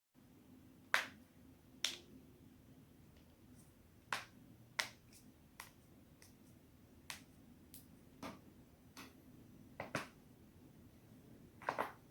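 Human joints being cracked: a string of about a dozen sharp single pops at irregular intervals, the loudest about a second in.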